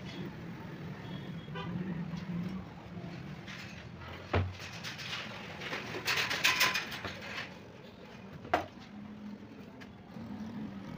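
A glass pane being handled and laid flat on a wooden workbench: a sharp knock about four seconds in, a brief clattering rattle of clinks around six to seven seconds, and another sharp knock near nine seconds, over a low steady hum.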